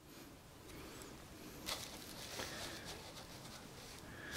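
Faint handling noise of hard plastic toy pieces as a Playmobil eagle figure is set onto its perch stand, with a few light clicks.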